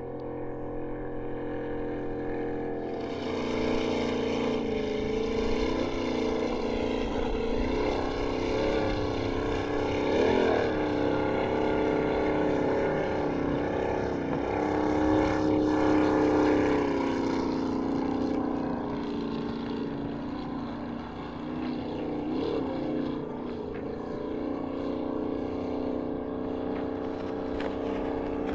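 Offshore racing powerboat engines running hard, a loud droning note with many overtones that swells about three seconds in and wavers up and down in pitch as the boats throttle and pass.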